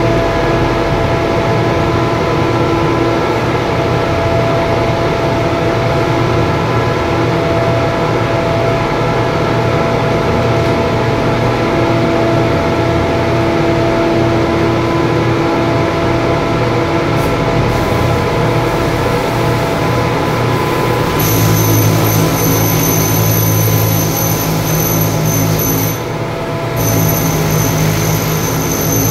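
Loud, steady industrial machinery drone with several steady hum tones, heard inside a steel ship hull compartment. About two-thirds of the way in, a brighter hiss with high whining tones and a heavier hum joins, dropping out briefly near the end.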